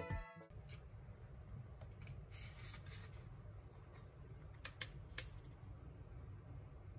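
Quiet handling sounds over a low steady hum: a soft click as the switch on a BALMUDA electric kettle is pressed on, a brief rustle of a paper tea sachet, and a few sharp light clicks near the middle.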